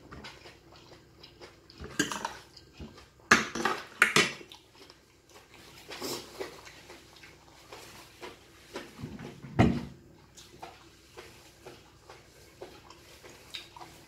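Metal fork and spoon clinking and scraping against a ceramic plate during a meal: a scatter of short sharp clinks, the loudest a few seconds in, with one heavier knock near ten seconds in.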